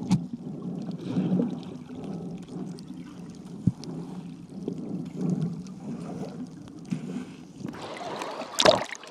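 Muffled underwater sound picked up by an iPhone in a waterproof case: a low, rumbling water noise that swells and fades. Near the end the phone breaks the surface with a loud splash.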